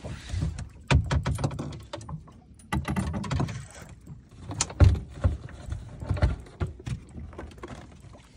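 Irregular knocks, thuds and clatter on the deck of a small fibreglass boat, from fishing gear being handled while a fish is played on a rod, with a low rush of wind and water between the knocks.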